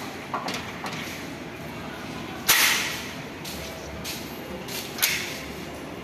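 A few short sharp clacks over a low background, the loudest about two and a half seconds in with a short fading tail, and another about five seconds in.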